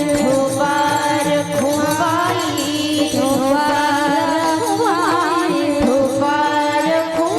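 Marathi devotional kirtan singing: a woman's voice sings an ornamented, wavering melody over a held drone, with a steady patter of small hand cymbals.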